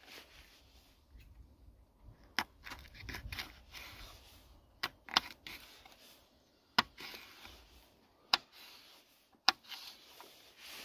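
Kitchen knife slicing a green bell pepper on a bamboo cutting board. Soft cutting and scraping sounds are broken by about six sharp taps of the blade hitting the board, at irregular intervals.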